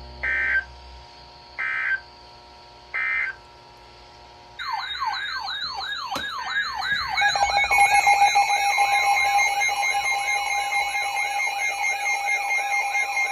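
Emergency Alert System end-of-message data bursts sound three times, short rasping two-tone squawks about a second and a half apart, closing the tornado warning. About four and a half seconds in, a warbling alert tone with quick repeated falling sweeps starts. A steady two-tone EAS attention signal joins it and becomes the loudest sound.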